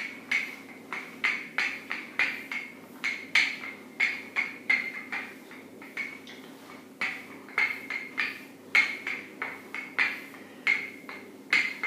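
A wooden rolling pin with rotating handles knocks and clicks against a wooden pastry board while rolling out shortcrust pastry, about two or three sharp knocks a second, a little irregular, with each stroke of the pin.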